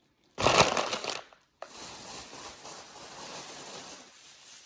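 Bread packaging crinkling as it is handled: a loud burst of rustling about half a second in, then steadier, softer crinkling.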